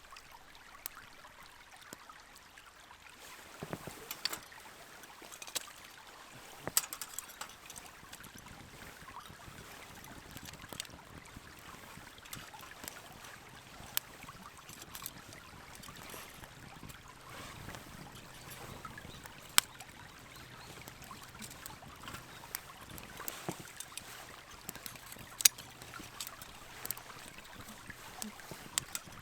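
Wood campfire crackling, with irregular sharp pops over a soft steady hiss; the loudest pops come about 7, 19 and 25 seconds in.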